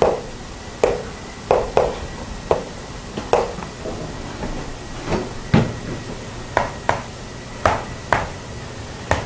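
Irregular short taps and clicks, about one or two a second, over a faint steady high-pitched hum.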